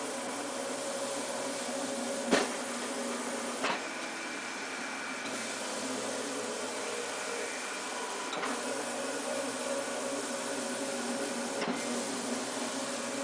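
Graphtec FC7000 cutting plotter running as it cuts window tint film: a steady mechanical whir with humming motor tones as the cutter head travels and the film feeds, broken by a few sharp clicks.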